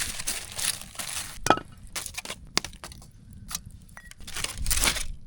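Cookware handled over a campfire where bratwurst and onions are cooking: scattered sharp clinks, clicks and rustles. The loudest is a single ringing metal clink about a second and a half in.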